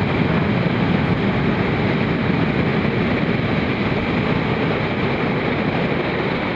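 Heavy shorebreak surf: large waves breaking and churning whitewater, a steady loud rushing noise with no separate crash standing out.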